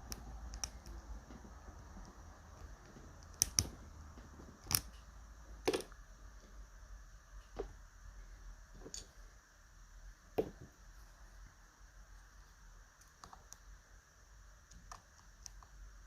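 Lock picking in a TESA T-12 pin lock: scattered small metallic clicks and taps as the pick and tension tool work the pins, a few louder clicks among many faint ones.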